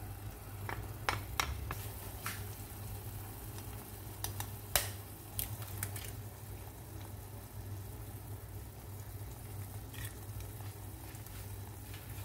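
Faint sizzling of an eggplant mixture in a frying pan over a low steady hum, with several sharp clicks and taps in the first six seconds as tomato paste is scraped in from a small bowl and an eggshell is cracked open over the pan.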